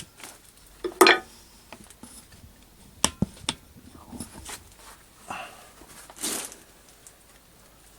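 Handling noises: a few light knocks and clicks, the sharpest about three seconds in, with two brief rustles later on.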